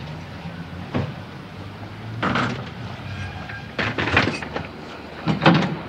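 A wooden shop door with glass panes knocking and rattling as it is handled, in several short clatters over a few seconds.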